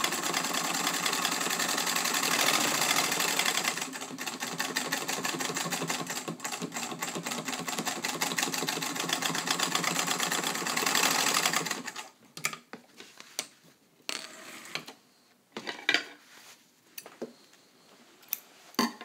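Singer 66 sewing machine stitching through several thick layers of denim, a rapid even clatter of needle strokes with its electric motor running. It eases slightly about four seconds in and stops suddenly about twelve seconds in. Then come scattered clicks and knocks as the fabric is taken out from under the presser foot.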